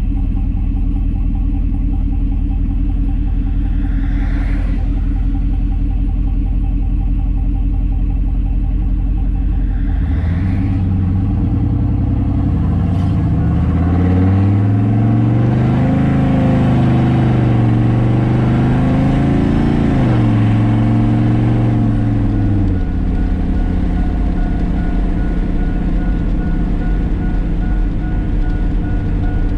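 Turbocharged GMC Sierra pickup's engine heard from inside the cab while driving: a steady drone, then from about ten seconds in the engine note rises under throttle, wavers and dips twice, and falls back to a steady cruise about twenty-two seconds in. A repeating electronic beep starts near the same point and keeps going.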